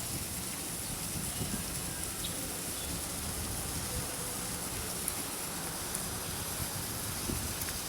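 Steady rain falling: an even hiss that does not let up, with a couple of faint ticks.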